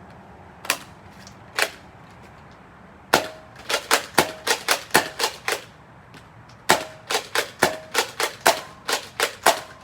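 Nerf Rival spring pistol firing foam balls: two single sharp snaps, then two quick strings of about ten shots each at roughly four a second.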